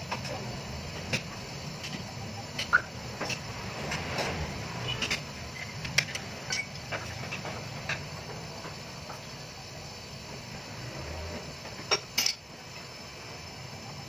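Hand tools working on metal under a lifted van: irregular clinks, taps and knocks with short metallic ringing, two sharp clicks close together near the end, over a low steady hum.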